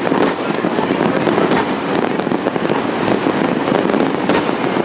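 Continuous barrage of Chinese New Year fireworks and firecrackers going off all around, a dense crackle of overlapping bangs with sharper reports standing out every so often.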